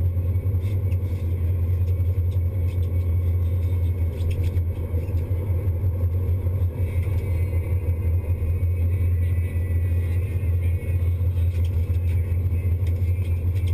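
Sportfishing boat's inboard engines running at a steady low drone under the cockpit.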